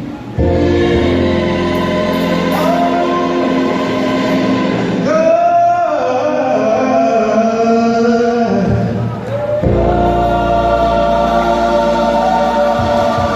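Choir singing a gospel song with instrumental accompaniment and steady bass, the voices holding long notes.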